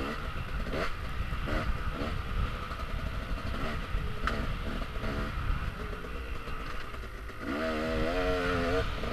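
Dirt bike engine heard from on board, revving up and dropping back again and again as the rider works the throttle along the trail. About seven and a half seconds in, the revs climb and hold a steady note for over a second before dropping and rising again, all over a heavy low rumble.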